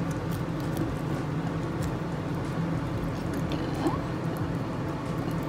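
A fork mixing and mashing filling inside a foil-wrapped baked potato, giving scattered light clicks and scrapes, over a steady low hum.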